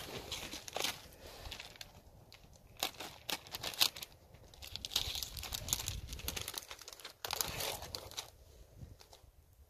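Rustling and crinkling of something being handled close to the microphone, in irregular bursts with sharp clicks, loudest about four seconds in and again after seven seconds.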